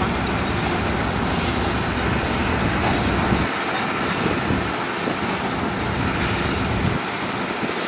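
Diesel engines of long-reach excavators, a Zoomlion ZE360E and a CAT, running steadily at a work site, a dense continuous drone. The low rumble drops away briefly about three and a half seconds in and again near seven seconds.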